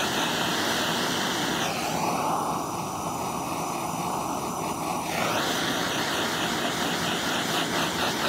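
Handheld gas torch burning with a steady hiss, its blue flame played over soft clay to stiffen it toward leather hard. About two seconds in the hiss drops lower in tone, and it rises back at about five seconds.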